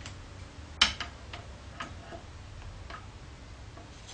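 Light metallic clicks from mini lathe parts being handled as the leadscrew pillow block is freed: one sharper click about a second in, then a few fainter ones spread out.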